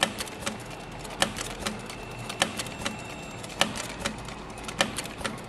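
Industrial heavy-duty sewing machine stitching slowly through fabric: regular mechanical clacks, a sharp one about every second and a quarter with lighter ticks between.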